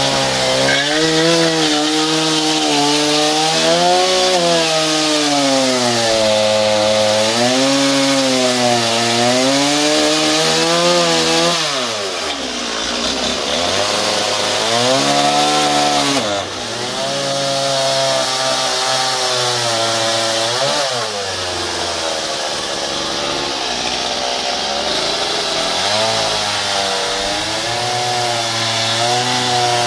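Two-stroke petrol chainsaw cutting into a solid wooden log. The engine pitch repeatedly sags and climbs again as the chain works through the wood, with a few abrupt drops along the way.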